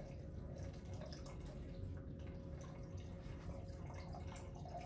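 Liquid trickling steadily from a urinary drainage bag's drain port into a clear plastic measuring container, as the bag is emptied.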